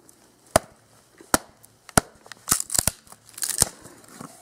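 Log wedged on a Cold Steel Trail Hawk tomahawk's blade being struck down onto wood to split it: three sharp knocks, then quick clusters of cracking and tearing as the wood splits along the grain.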